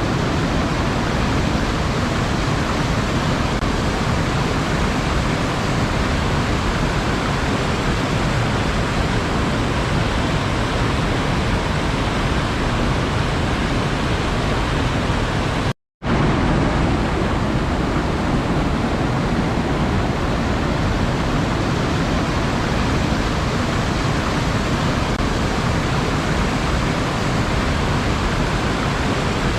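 Steady wash of sea surf, an even roar of water without distinct wave surges. It cuts out to silence for a split second a little past halfway, then resumes unchanged.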